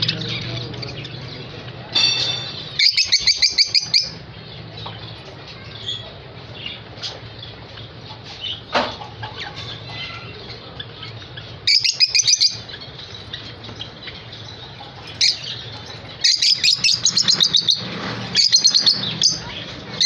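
Rosy-faced (peach-faced) lovebirds chattering in several bursts of rapid, high chirps, with a steady low hum underneath.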